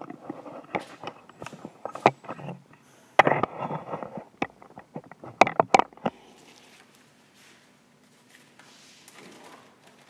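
Handling noise from the camera phone as it is carried and set down: irregular knocks, clicks and rustling that stop about six seconds in, leaving quiet room tone.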